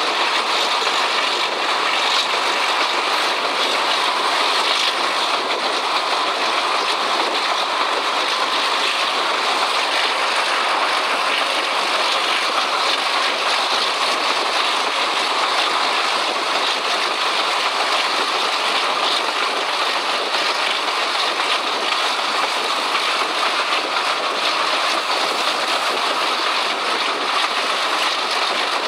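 Alco RS-8 diesel locomotive working under power at speed, heard from an open train window: a steady mix of engine, wheel-on-rail and rushing wind noise.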